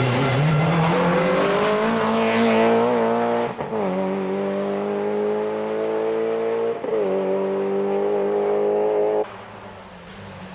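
Peugeot 306 S16 rally car's four-cylinder engine at full throttle as the car passes and pulls away, its pitch climbing through the gears with two quick upshifts, about three and a half and seven seconds in. The engine sound drops off abruptly a little after nine seconds.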